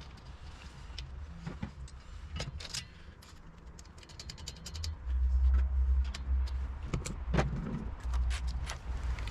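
Light metallic clinks and taps of hand tools and small metal parts being handled, in quick irregular runs, over a low rumble that grows louder about five seconds in.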